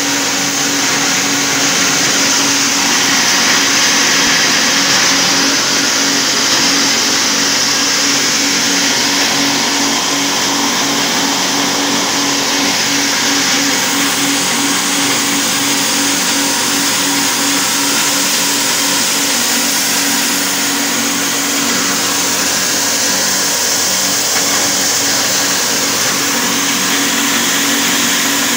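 Electric-motor-driven corn cob grinding mill running steadily while grinding cobs into powder: a loud, even grinding rush over a steady motor hum.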